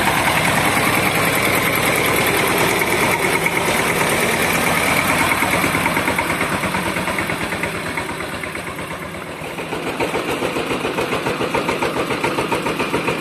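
Forte 18 hp mini tractor's engine running as it drives over rough ground pulling a trailer, with a steady rapid chugging. It eases off briefly about eight seconds in, then picks up again.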